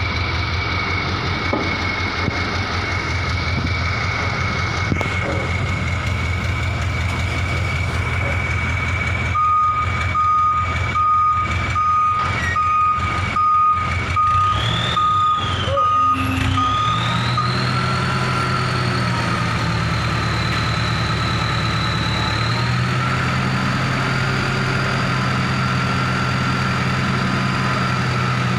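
Truck-mounted crane running, its engine humming under a steady high whine. For about seven seconds midway a warning beeper sounds a little more than once a second. As the beeping stops, the whine glides up in pitch and the engine speeds up.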